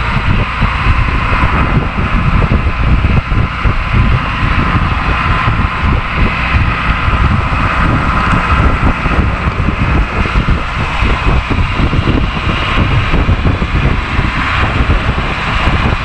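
Steady running noise of a moving vehicle on the road: a continuous low rumble with road and wind noise over it.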